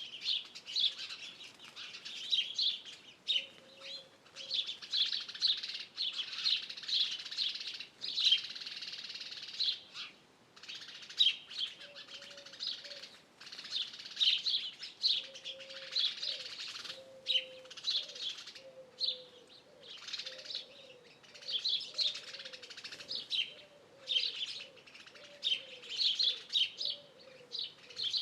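Several songbirds singing at once, a steady stream of high, quick chirps and trills. Through the second half a lower bird note repeats in an even series beneath them.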